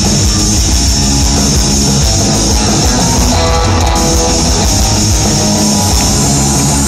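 Loud live band music, amplified through a concert sound system.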